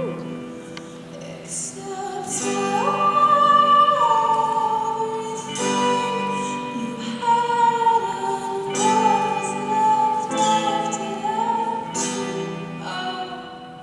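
Music with a woman singing slow, long held notes that glide from one pitch to the next.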